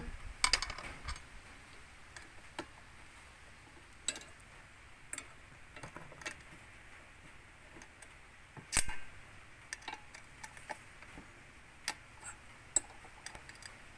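Irregular light metal clicks and knocks, the loudest near the start and about nine seconds in: bolts and steel parts of an angle grinder stand being handled and fitted during hand assembly.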